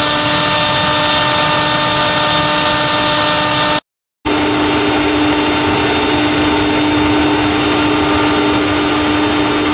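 Wood gasifier rig running: a steady mechanical whine over a rushing noise. The sound drops out for a split second about four seconds in, then returns with the whine louder.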